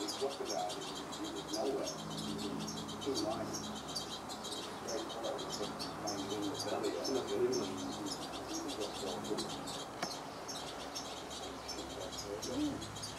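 European goldfinches chirping: a continuous, rapid run of short, high calls, with a lower-pitched warbling sound underneath.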